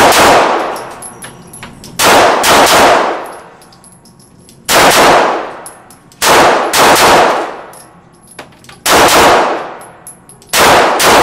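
9mm Glock 19 pistol being fired in quick strings of two or three shots, the strings about two seconds apart. Each shot rings on with a long fading echo, and the loudest moments reach full scale in the recording.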